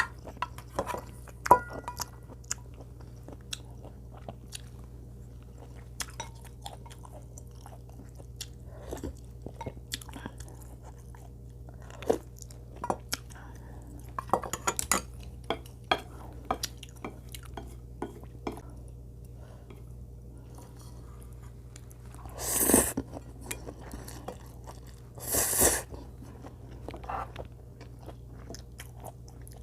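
A person chewing and eating close to the microphone, with wet, crunchy mouth sounds and utensils clicking against dishes. A brief ringing clink comes about a second and a half in. Two louder, longer noisy sounds of about a second each come near the end.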